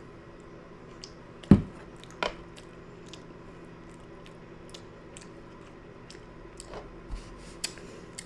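Close-up chewing of a mouthful of soft chicken pot pie, with small clicks of a metal fork against a bowl. One sharp knock about a second and a half in is the loudest sound, and a lighter one follows shortly after.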